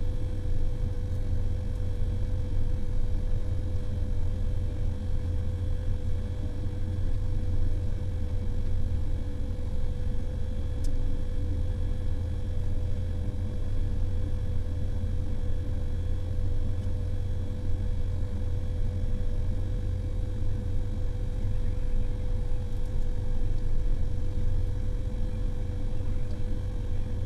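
Motor grader diesel engines running steadily, a deep low rumble with a constant whine-like tone above it.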